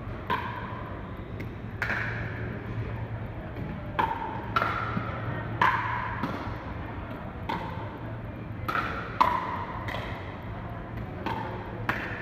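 Pickleball rally: paddles striking the hard plastic ball back and forth, about ten sharp knocks at uneven intervals of one to two seconds, each ringing briefly and echoing in a large hall.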